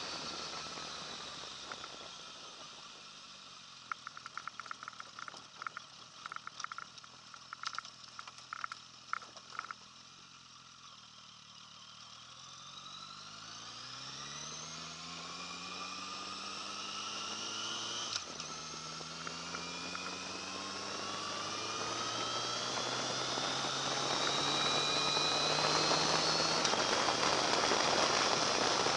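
Sport motorcycle engine heard close up: the revs fall away, it runs quietly at low revs for several seconds with a run of light clicks, then climbs steadily in pitch under acceleration. A gear change drops the revs about two-thirds of the way through and another comes near the end, with wind noise building as speed rises.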